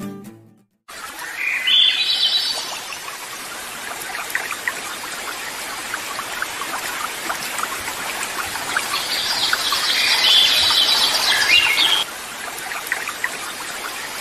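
Penguins calling from an iceberg over a steady wash of sea water and wind. The high, chirping calls come about two seconds in and again, loudest, for a couple of seconds past the middle.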